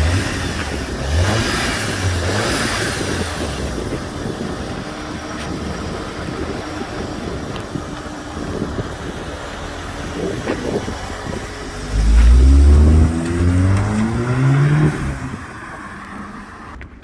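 Audi S3 8V's turbocharged 2.0 TFSI four-cylinder under way, with steady road noise at first. About twelve seconds in the engine pulls hard, its pitch rising, then the sound falls away as the throttle is released about three seconds later.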